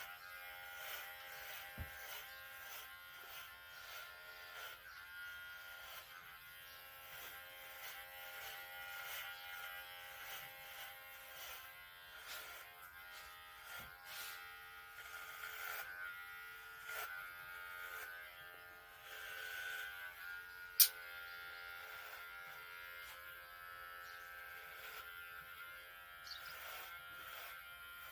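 Electric hair clipper running steadily with a buzz during a haircut, with one sharp click about two-thirds of the way through.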